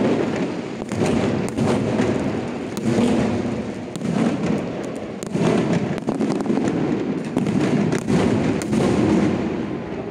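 Aerial fireworks display going off in rapid succession: many sharp bangs and crackles overlapping into a continuous loud din that swells and eases every second or two.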